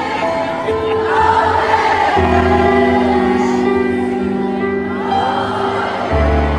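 Grand piano played live, holding sustained chords, with a new low chord struck about two seconds in and again near the end. Singing runs over the piano in the first part.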